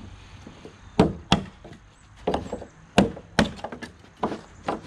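Claw hammer striking the wooden clamping blocks stuck to a fiberglass transom panel, knocking them loose after an epoxy glue-up. About nine sharp blows in uneven bursts, often two close together.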